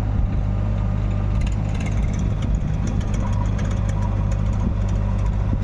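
Heavy diesel engine running steadily with a low, even drone.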